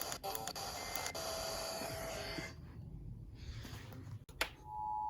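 Off-air radio hiss and static that fades down after a couple of seconds, followed by a sharp click. Near the end the Emergency Alert System attention signal begins: its two-tone alert sounds steady.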